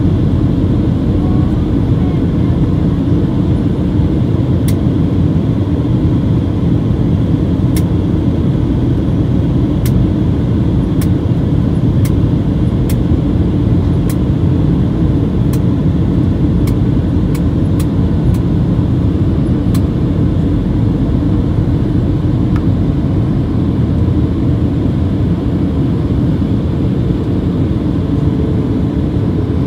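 Steady cabin noise of a Boeing 737-800 in flight, heard from a seat over the wing: the engines and the airflow past the fuselage make an even, low rush. Faint, short ticks come and go through the middle.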